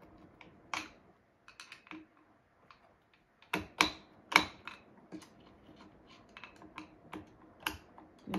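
Irregular light clicks and knocks of a tool and small metal parts on an opened Pfaff 1229 sewing machine as a part is screwed fast, with a few louder knocks about three and a half to four and a half seconds in.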